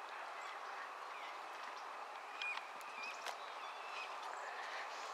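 Ducks on a pond giving a couple of short calls about two and a half and three seconds in, over a steady outdoor hiss with scattered faint clicks.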